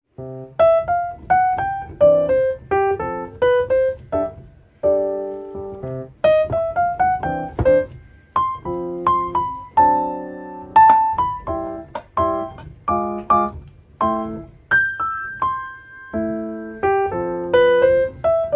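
Background piano music: a quick, bright melody of single notes over chords.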